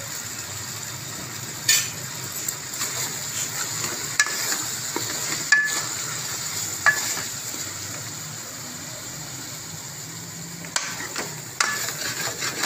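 A steel spoon stirs chicken, tomatoes and spices as they sizzle in oil in a metal pot. The frying makes a steady hiss. Over it the spoon clinks and scrapes sharply against the pot now and then, more often near the end.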